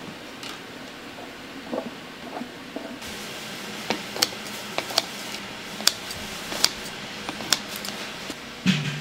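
Metal kitchen scissors snipping fish cake in a pan of thick simmering tteokbokki sauce: a string of sharp clicks, one or two a second, over a steady hiss.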